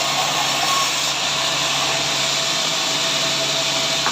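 Sawmill saw running steadily: an even rushing noise with a faint steady whine, unchanging in level.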